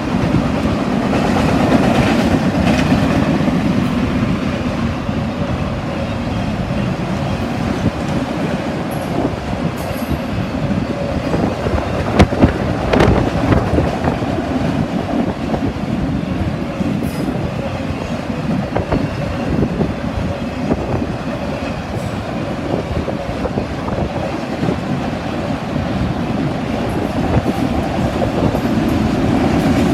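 Norfolk Southern freight train's cars rolling past: a steady rumble of steel wheels on rail with irregular clicking over the rail joints, and a few sharper, louder clanks about twelve seconds in.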